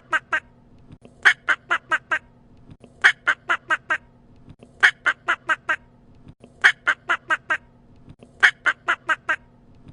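A bird calling in quick runs of about five short, sharp calls, one run roughly every second and three-quarters.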